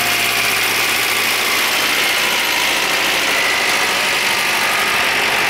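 MGB GT's 1.8-litre B-series four-cylinder engine idling steadily as it warms up.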